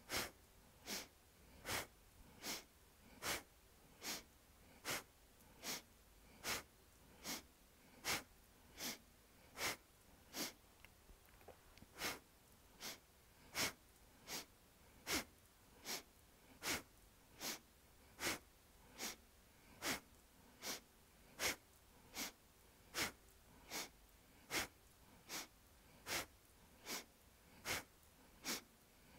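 A person breathing sharply and rhythmically, a short audible inhale and exhale alternating about every 0.8 s, each breath timed to a seated twist from side to side. The pattern skips a beat about ten seconds in.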